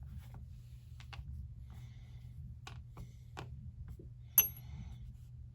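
Small steel parts of an MK18 bolt carrier group being handled on a bench: light scattered clicks, then one sharp, ringing metallic clink about four seconds in, like a small part set down or dropped. A steady low hum runs underneath.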